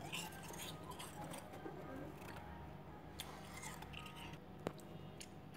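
Freezer frost being scraped: faint, crisp scratching and crunching, with one sharp click near the end.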